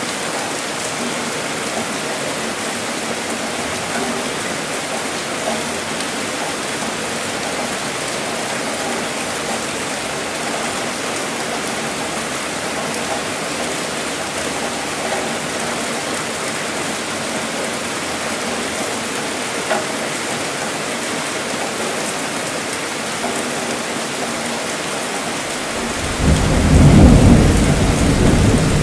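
Steady rainfall, then rumbling thunder breaks in about 26 seconds in, a loud low roll that is the loudest part.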